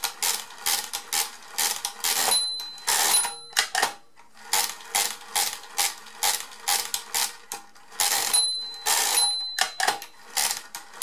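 Addo Multo Model 3 pinwheel mechanical calculator being cranked through a long division: quick clattering crank turns and ratcheting of the carriage and counter. Its underflow bell rings twice a little over two seconds in and twice again about eight seconds in, the signal that the subtraction has gone below zero and a correcting positive turn and a carriage shift are due.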